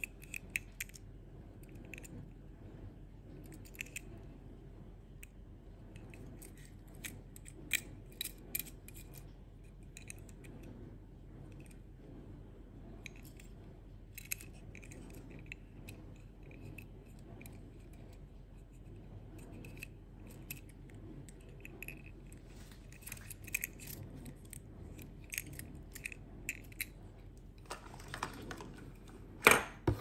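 Small scattered clicks and ticks of a die-cast toy forklift being handled in the fingers, its parts knocking lightly. Near the end a louder rustle with a sharp knock as a hand reaches into a cardboard box packed with bubble wrap.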